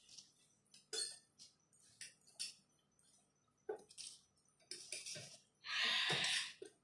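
Metal forks clinking and scraping in stainless steel bowls while instant noodles are eaten and slurped, a string of short sharp sounds. Near the end comes a louder hissing rush of breath or slurping that lasts almost a second.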